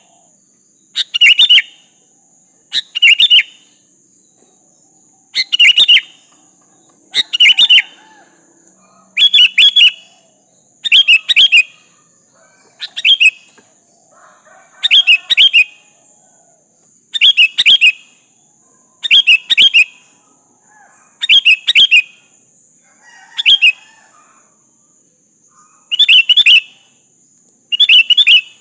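Sooty-headed bulbul (kutilang) singing: short, loud, chirpy phrases repeated about every two seconds, over a steady high-pitched hiss.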